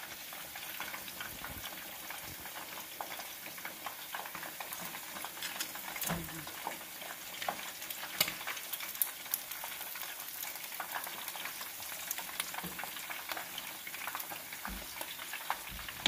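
Hot deep-frying oil sizzling and crackling steadily, with frequent small sharp pops, as freshly fried whole quails drain in a metal strainer over the pot.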